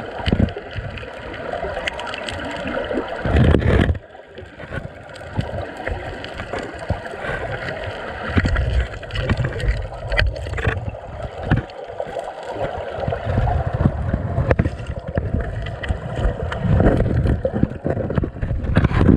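River water heard through a submerged GoPro's housing: muffled churning and gurgling of the current with a heavy low rumble and scattered knocks. A louder surge about three seconds in cuts off sharply.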